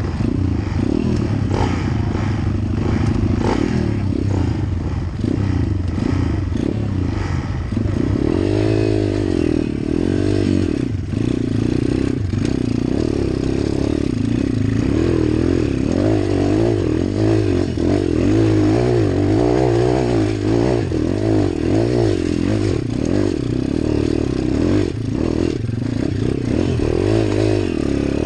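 Pit bike with a 140 cc YX single-cylinder four-stroke engine being ridden up a rocky dirt trail, its engine note rising and falling over and over with the throttle. Stones and the bike clatter over the rough ground.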